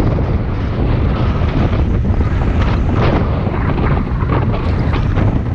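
Wind buffeting the microphone, a steady, loud low rumble.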